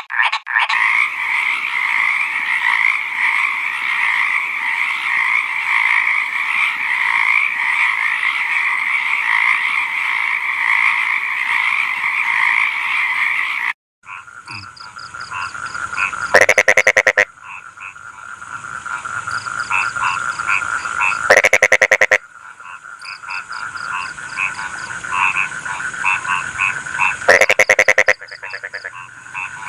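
A dense frog chorus of steady, overlapping trilling croaks, which cuts off about 14 seconds in. It gives way to a second frog chorus in which a single loud, close frog gives a rapid pulsed croak three times, about five seconds apart.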